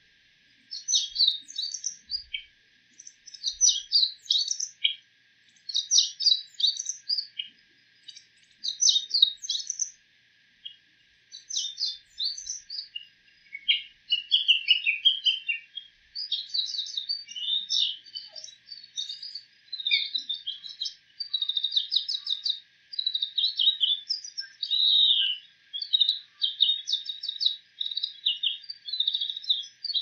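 Bull-headed shrike singing a medley of mimicked calls of other birds: high-pitched phrases of quick notes. For the first half they come in bursts of about a second with short pauses between; about halfway through they run on almost without a break.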